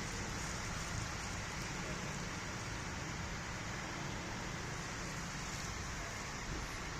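Steady road traffic ambience in rain: an even hiss of rain and passing traffic with a low rumble underneath, no single vehicle standing out.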